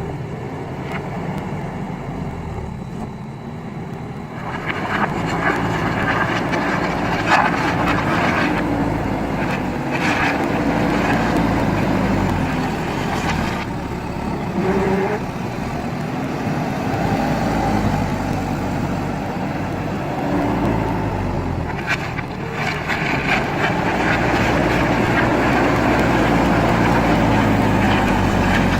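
JCB backhoe loader's diesel engine running under load, its revs rising and falling, with several short noisy bursts as the machine works in gravel and stone.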